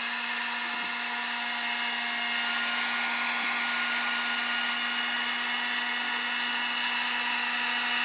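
Drill Master dual-setting heat gun running on its high setting: a steady fan hum with a higher whine over a rush of blown air.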